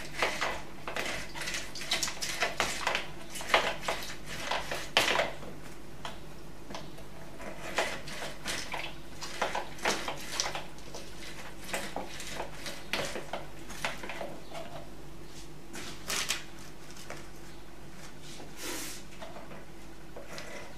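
Citrus halves being pressed and twisted by hand on a plastic manual citrus juicer: irregular scrapes and squeaks of rind against the ribbed reamer, with small knocks of the plastic. The noises are busier in the first half and sparser later.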